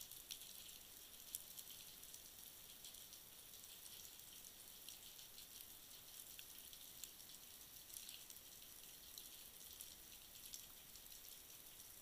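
Faint underwater ambience over a rocky seabed: a steady high fizz dotted with many small sharp clicks and ticks, the crackle of the reef heard through the camera's housing.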